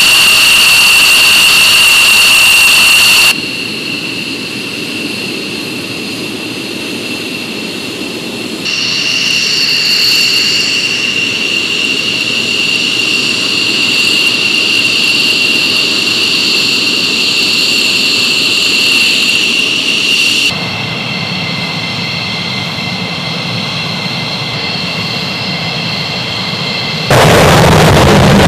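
F-16 and F-15E fighter jets' engines running at taxi: a steady high-pitched whine over a rumbling roar. The sound changes abruptly several times, and is loudest in the first few seconds and again in the last second.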